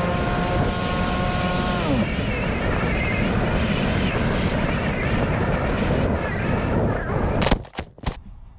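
Electric motor and propeller of an FPV flying wing heard from its onboard camera: a whine that falls in pitch and dies away about two seconds in as the throttle comes off. Air rushes past as the wing flies low over the field, then two sharp impact clicks near the end as it strikes the ground.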